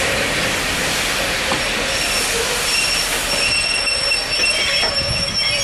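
Steam locomotive hauling coaches away: a steady rush of steam and running noise, with a high-pitched squeal of wheels on the curved track coming in about two seconds in and growing stronger.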